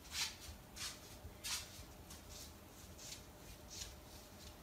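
A cat's paws on a wooden floor: a run of faint, soft scratchy steps, about one every half second to second.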